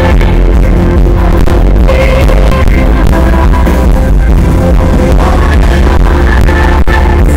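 Live pop song from the audience: a woman singing held notes over strummed acoustic guitar, with a heavy bass, recorded very loud.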